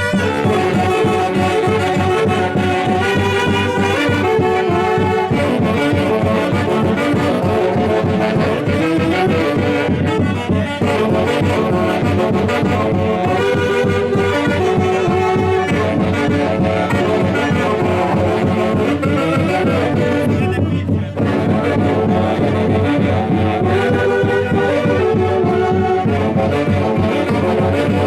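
Live band music from a Huancayo orquesta playing a Santiago tune, led by wind instruments, with short breaks between phrases about a third and two thirds of the way through.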